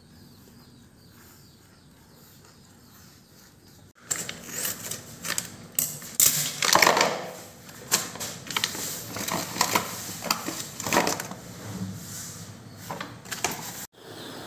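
Faint background hiss, then from about four seconds in a run of irregular clicks, knocks and rustles from handling a frozen block of chicken gizzards in a plastic bowl.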